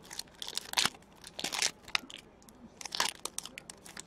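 Hockey card pack wrappers crinkling and cards being handled, in a few short rustling bursts.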